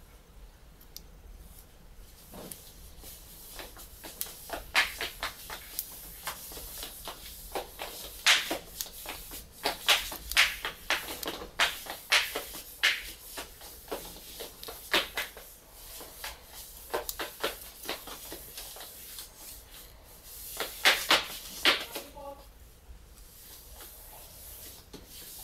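Small sharp clicks and ticks of metal tweezers and the plastic lens-barrel parts of a Sony DSC-QX10 camera being handled and pried apart. The clicks come in irregular clusters, busiest through the middle and again near the end.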